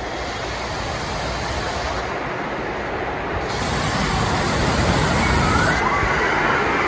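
Water park's giant tipping bucket dumping a torrent of water onto the splash pad, a heavy steady rush that swells about four seconds in over the constant spray of the play structure's fountains.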